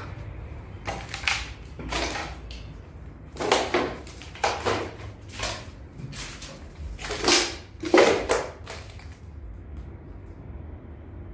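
Footsteps crunching over rubble and debris: a string of uneven, scraping steps that stop about nine seconds in.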